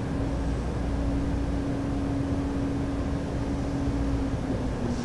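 Steady low rumble of background room noise, with a steady low hum that fades somewhat near the end.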